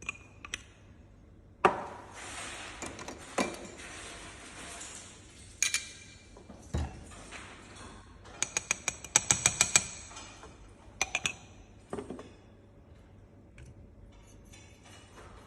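Clinks and knocks of hard kitchenware being handled, single strikes here and there with a quick run of about a dozen taps around the middle.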